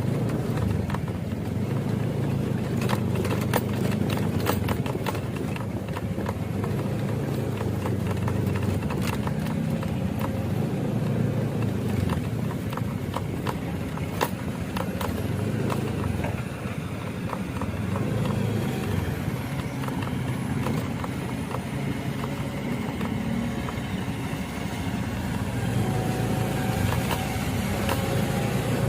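Steady low rumble of a vehicle engine with a scatter of sharp clicks and knocks, thickest in the first half; faint steady tones come in near the end.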